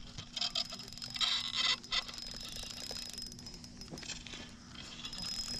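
Spinning reel being cranked as a hooked trout is reeled in: clicky rattling in two short spells, about half a second and a second and a half in.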